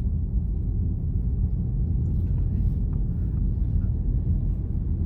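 Steady low road rumble of a car, heard from inside the cabin while driving.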